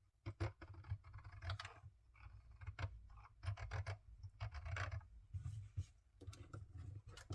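Irregular small plastic clicks and scratching from handling a handheld mini sewing machine and its fabric, as the needle is brought up to its highest point.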